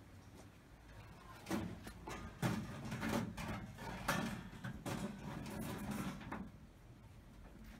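Stainless wire smoker racks clinking and scraping against each other and the metal box of a Big Chief smoker as they are lowered in: a run of light rattles and knocks through the middle few seconds.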